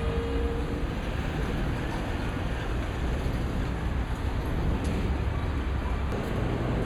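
Steady road traffic noise on a wide city street, with a strong low rumble of passing vehicles.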